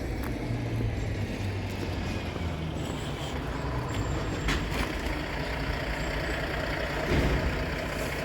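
A train running through the level crossing: a steady low engine rumble with a few sharp clicks, a little louder near the end.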